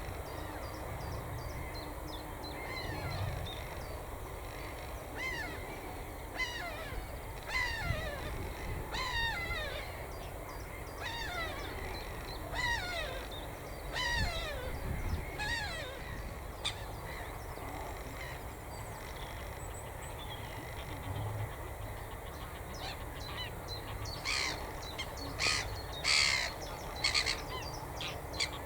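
Wild birds calling: a series of repeated calls that fall in pitch, about one a second, through the first half, then several loud, harsh calls in quick succession near the end.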